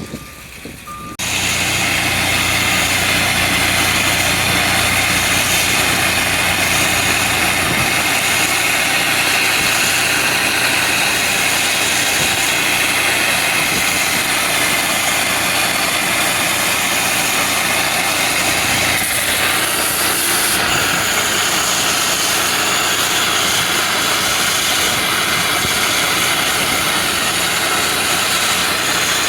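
Engine of a pressure-washing rig running steadily, with a steady hiss over it; it starts abruptly about a second in.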